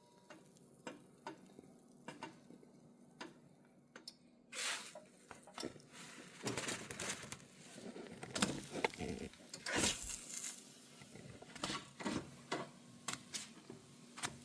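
Metal spatula clicking and scraping on an electric griddle top while cooking pancakes. It starts with a few light clicks, then from about four and a half seconds in becomes a busier run of knocks and scrapes.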